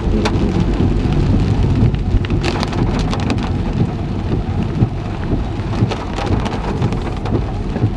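Heavy rain falling on a car, heard from inside the cabin: a dense steady patter of drops with many sharp individual hits over a low rumble.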